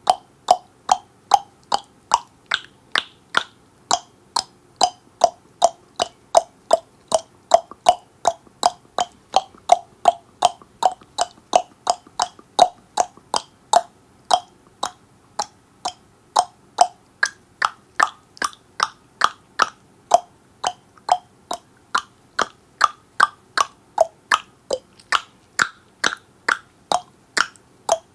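Human tongue clicks, repeated steadily at about two to three a second, the pitch of the click shifting higher now and then as the mouth changes shape.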